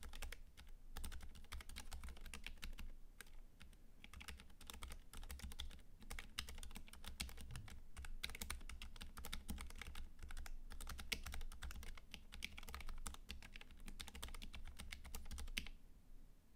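Continuous fast typing on a Boardsource Technik low-profile keyboard with Kailh Choc Purpz switches, tape-modded and lubed, under MBK Low Pro keycaps: a dense run of quick key clacks that stops near the end.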